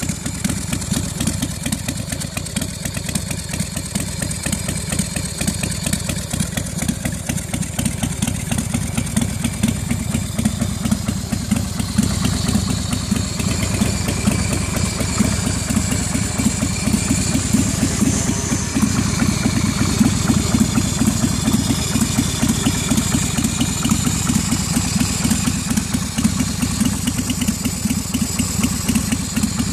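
Big Bear Choppers Athena's V-twin engine idling steadily through twin BSL exhaust pipes, with an even, pulsing exhaust beat.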